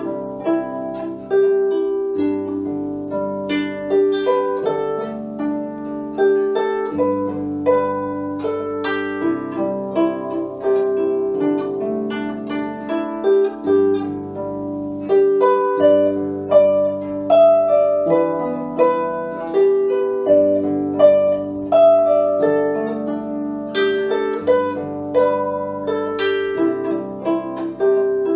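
Solo wooden lever harp played by hand: a slow plucked melody over held bass notes that change every two or three seconds.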